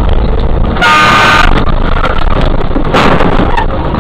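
A vehicle horn sounds once, briefly, about a second in, over the steady low rumble of a vehicle driving over a snowy road. A short clatter follows about three seconds in.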